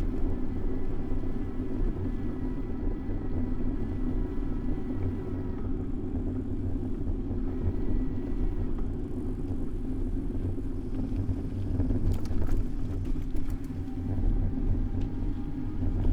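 Steady low rumble of city road traffic heard from a moving bicycle, with faint whining tones that fade out around the middle and return near the end. A few light clicks come about twelve seconds in.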